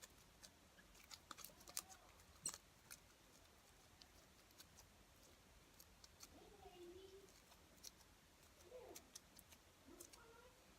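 Faint, scattered sticky clicks and crackles of slime being worked and peeled off by hand, busiest in the first few seconds.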